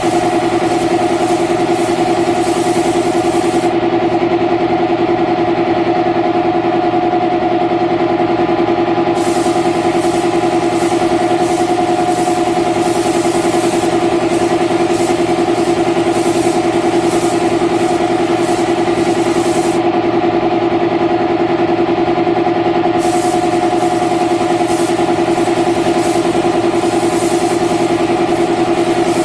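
Air compressor running steadily with an even motor hum, feeding a paint spray gun whose high air hiss cuts out twice for a few seconds as the trigger is released.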